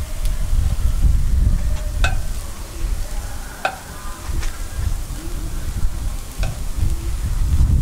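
Chrysanthemum bread (gukhwappang) cooking in hot cast-iron molds, with about five sharp metal clinks from the molds and tools, over a low rumble.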